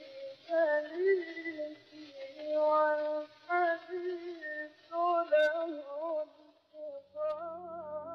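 Old gramophone record of a high solo voice singing an Arabic love qasida in long ornamented lines with wavering vibrato, the sound dull and lacking treble. About seven seconds in, an instrumental music bed comes in under it.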